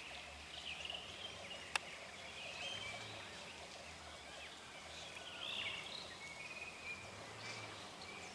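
Outdoor birdsong: several birds giving short chirps and warbling calls, scattered throughout, over a steady background hiss. A single sharp click just under two seconds in.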